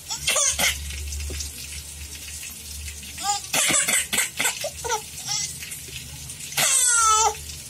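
Baby laughing in short high-pitched bursts, with a long squeal of laughter near the end that wavers and falls in pitch.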